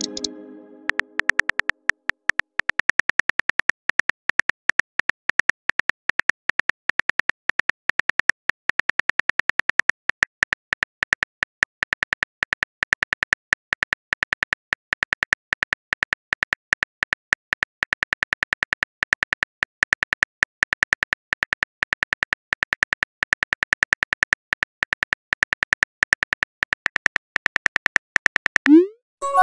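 Smartphone on-screen keyboard clicks, a fast, steady run of ticks as a long text message is typed. Near the end, a short rising swoosh as the message is sent.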